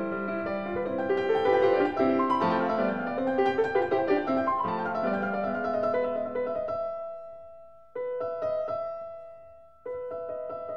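Background piano music playing a melody. It fades about seven seconds in and then cuts back in abruptly twice near the end.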